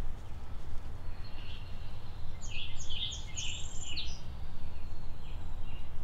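A songbird sings one quick phrase of short, high chirping notes about two seconds in, over a steady low background rumble.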